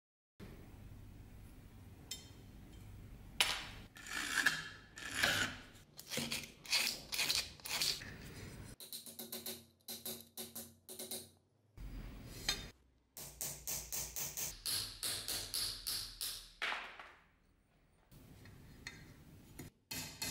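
Hammer striking a steel pin punch to drive the rivets out of an old dagger's handle tang: runs of sharp metallic taps, about three a second, with pauses between runs.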